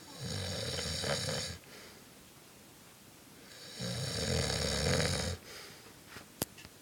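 A man snoring loudly in his sleep: two long snores, each about a second and a half, roughly three and a half seconds apart, with a brief sharp click near the end.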